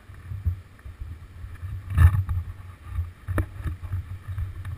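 Irregular low thumps and bumps on a stopped tandem mountain bike as the riders shift their weight and handle it, picked up through the bike-mounted camera, with one louder knock about two seconds in and a couple of small sharp clicks after it.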